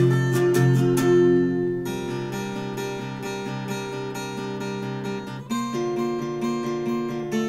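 Background music on acoustic guitar, strummed and plucked chords that change about two seconds in and again near the five-and-a-half-second mark.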